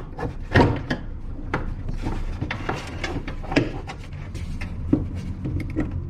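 Wiper mechanism of a Skoda Fabia 2 knocking and scraping against the car body as it is worked into place. Irregular knocks, several a second, over a low hum.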